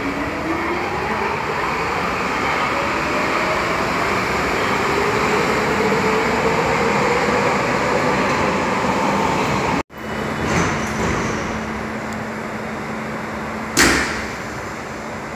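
Nuremberg U-Bahn train pulling out of an underground station, its traction motors giving two rising whines over the rolling noise as it gathers speed. Then a train stands or rolls in at the platform with a steady low hum, and a short, loud burst of noise comes near the end.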